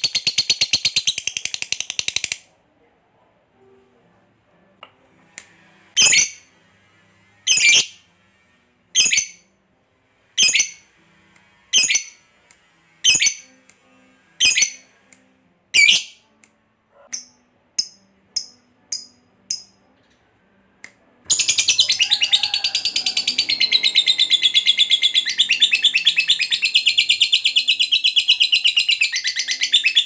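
A lovebird's ngekek: a long, rapid high-pitched chattering trill that breaks off about two seconds in. Then comes a string of single sharp calls about every second and a half, which grow shorter and quicker. About two-thirds of the way through, a continuous rapid trill starts up again and runs on.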